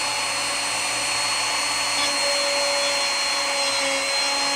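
Electric router running at speed, cutting the recess for a bow-tie inlay in a wooden tabletop. A steady high whine with a rushing noise that dips slightly in pitch a couple of times as the bit takes load.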